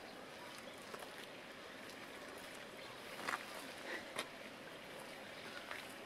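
Daurian redstart calling: a few short, sharp call notes about three to four seconds in and one more near the end, over a faint steady outdoor hiss.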